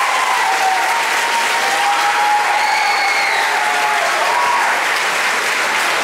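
Theatre audience applauding steadily after a song, with cheering voices and a short whistle near the middle.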